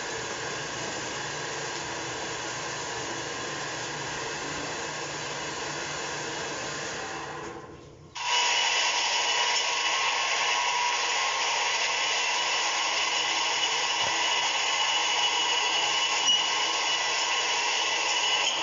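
Commercial popcorn machine running with a steady blower-like whir. It fades out briefly about eight seconds in, then cuts back in louder with a steady whine over the noise.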